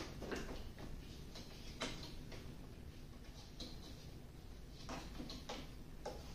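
One-handed trigger bar clamp being squeezed tight, giving a few faint, irregular ratcheting clicks as it draws the planer's infeed table up flat against a sled.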